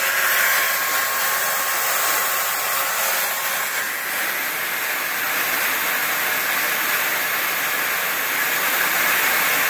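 Router motor on a home-built CNC machine running steadily, an even, high whine-and-hiss, during a slow finishing cut on a foam mold.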